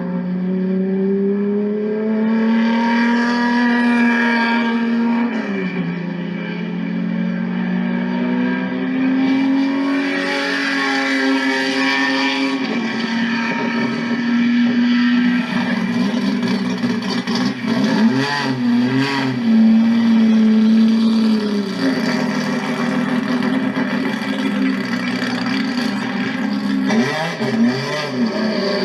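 Turismo Carretera race car engine revving and running, its pitch climbing, holding and dropping back several times over the stretch.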